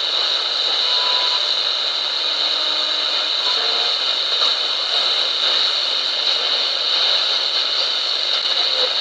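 Steady static hiss from the small loudspeaker of a portable radio modified to receive shortwave up to 29 MHz, tuned in the 27 MHz band with no voice coming through. A few faint short whistles come and go in the noise.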